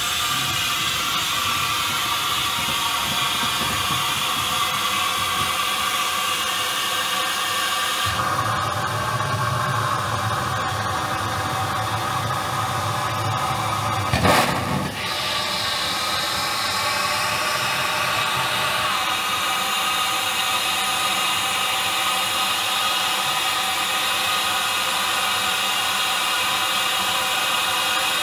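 SR U class 2-6-0 steam locomotive 31806 hissing steam steadily as it moves slowly along the track, with a short loud knock about halfway through.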